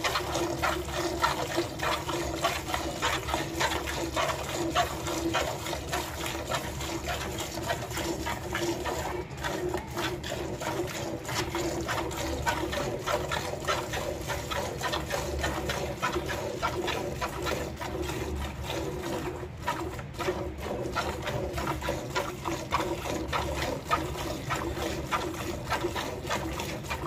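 A cow being hand-milked: quick repeated squirts of milk from the teats streaming into a bucket, one jet after another at a steady rhythm.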